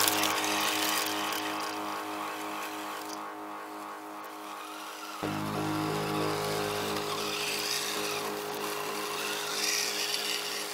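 HG P402 RC crawler's electric motor and gear train whining steadily as it drives. About halfway through, a fuller, lower drone joins in and the sound gets a little louder.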